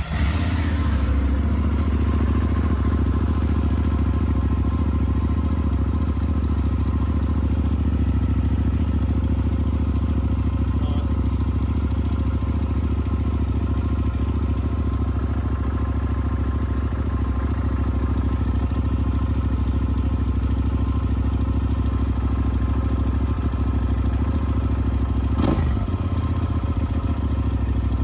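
Hyosung GT650's 650 cc V-twin engine catching on the starter and then running steadily, on its first start after sitting unused for a while. A short rise and fall in pitch comes near the end.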